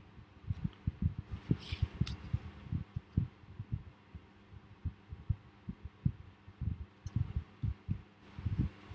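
Air from an electric fan buffeting the microphone, heard as dense, irregular low thumping and rumbling. A few brief papery swishes of oracle cards being handled and flipped come through about a second and a half in and again near the end.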